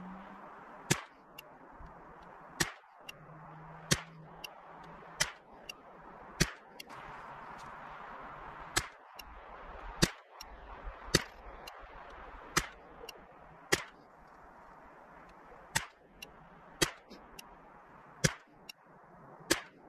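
Ruger 10/22 .22LR rifle with a KIDD barrel firing a steady string of shots, one sharp crack about every second or so, with fainter clicks in between.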